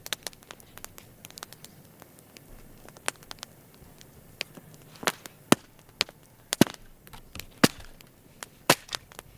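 Campfire wood crackling and popping: scattered small crackles, with a handful of sharp, loud pops in the second half, about a second apart.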